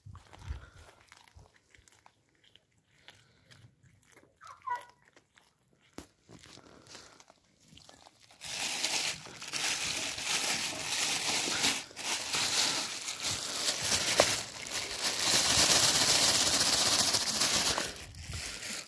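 Cats chewing and crunching raw whole fish: faint, scattered crunches at first, then loud, dense crackling crunching from about eight seconds in until shortly before the end.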